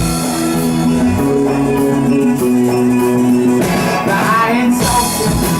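A live rock band playing between sung lines: held chords that change about every second and a quarter over a steady band backing.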